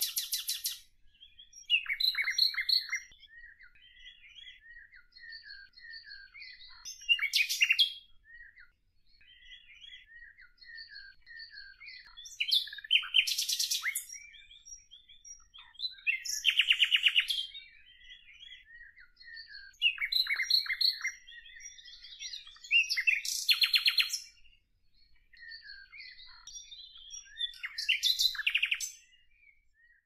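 Songbirds singing: a loud, rapid trilled phrase about every three to four seconds, with softer chirps and short whistles from other birds in between.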